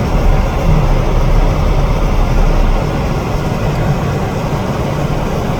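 Car cabin noise while driving: a steady low rumble of engine and tyres, easing slightly about two and a half seconds in.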